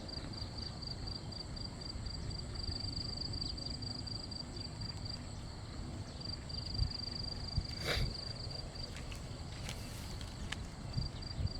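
An insect trilling on one steady high note, broken off for a moment twice, over a low rumbling background. A single sharp click comes about eight seconds in.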